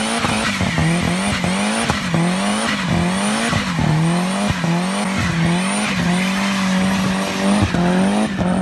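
Saab 9-5 wagon doing a front-wheel burnout: the front tyres spin and squeal while the engine is held at high revs. The engine note dips and climbs back over and over, about once or twice a second.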